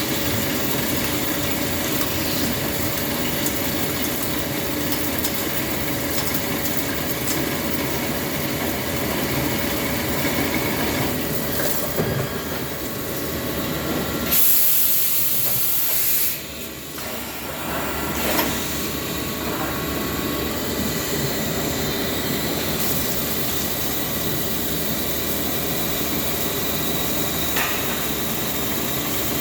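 Okuma Macturn 30 CNC lathe running with a steady mechanical hum. Around the middle there is a loud hiss of about two seconds.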